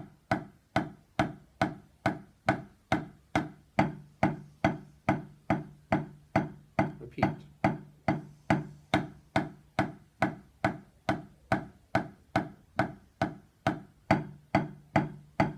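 Wooden drumsticks striking a rubber practice pad in a slow, even stream of strokes, about two and a half a second, as a stick-control exercise.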